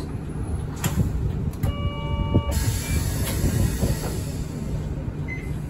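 A route bus's low engine and cabin rumble heard from inside, near the front. About two seconds in, a short electronic tone of a few pitches sounds for under a second.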